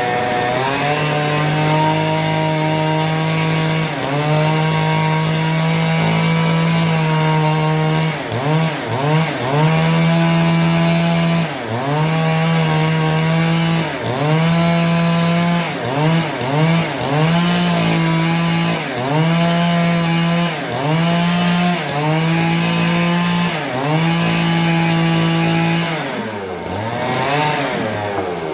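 Chainsaw cutting a large timber, the engine held at high revs, its pitch dipping and recovering every second or two as it works through the wood. Near the end it drops briefly toward idle and revs back up.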